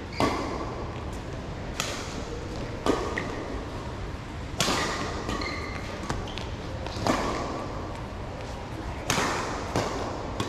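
Badminton rally: rackets striking the shuttlecock seven times at irregular intervals of one to two and a half seconds. Each hit is a sharp crack with a short echo in the hall.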